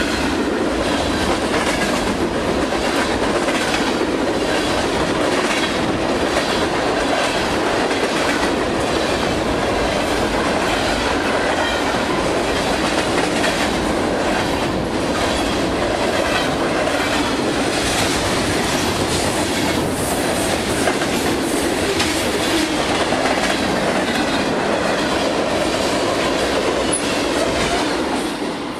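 Freight train of open-top hopper cars and tank cars rolling past, steel wheels clattering over the rail joints in a steady rush of noise. The sound drops off suddenly near the end as the last car goes by.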